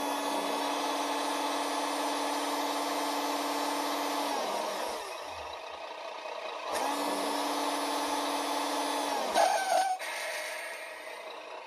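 A GT Power entry-level RC truck sound module playing its simulated truck engine through its small speaker: the engine sound rises as throttle is applied, holds steady for about four seconds, drops back, then comes up again for a few more seconds. Near the end comes a short, louder hiss.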